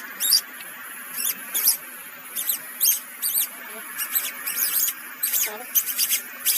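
Rapid series of high-pitched, sweeping animal chirps and squeaks, several clusters a second, over a faint steady hiss.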